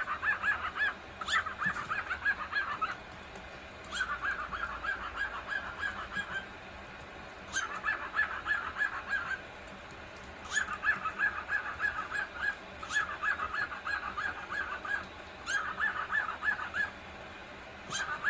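Male cockatiel chattering in repeated runs of rapid chirps, about eight to ten notes a second. Each run lasts one to two and a half seconds, with short pauses between.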